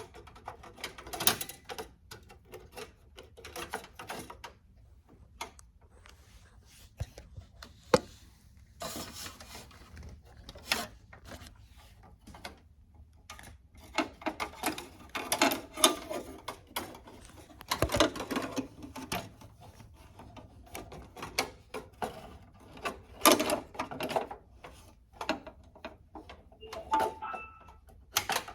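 Irregular clicks, knocks and scraping of metal and plastic as a PCIe adapter card carrying an NVMe SSD is worked into a cramped slot inside a desktop PC case.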